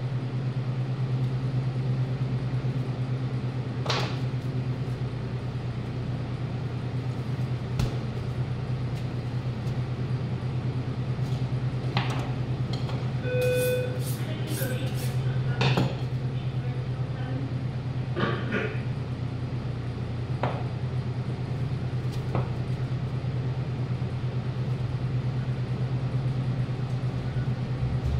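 Steady low machine hum, with scattered knocks and clicks of knives and meat being handled on a plastic cutting board, and a brief tone about halfway through.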